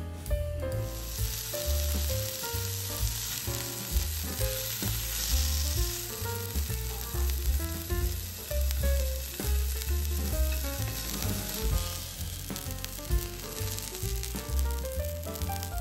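Matsusaka beef, onion and shiitake sizzling on a hot tabletop grill plate (tōban-yaki). The sizzle starts about a second in and carries on steadily over background music with a pulsing bass.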